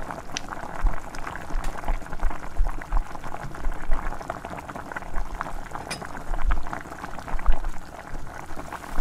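Thick fish curry gravy bubbling in a pot, a dense crackle of many small pops, while a steel ladle stirs through it, with irregular low bumps.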